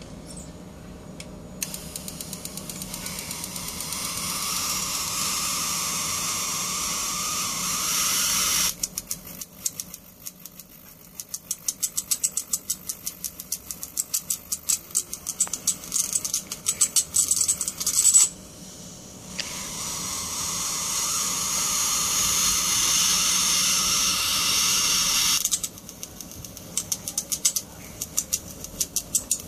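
High-voltage arc from a CRT television's flyback transformer, drawn from its high-voltage lead to the set's metal. It alternates between a steady sizzling hiss of a sustained arc and runs of rapid crackling snaps as the spark breaks and restrikes: first a long hiss, then a run of snapping, then another long hiss, then more snapping near the end.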